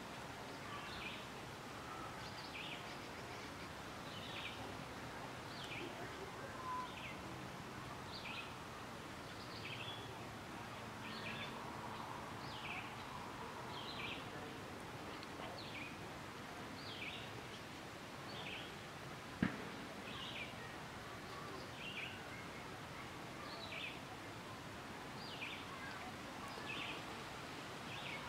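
A short, high chip call repeated steadily about once a second, each note falling slightly in pitch, over quiet outdoor background noise. One sharp click sounds about two-thirds of the way through.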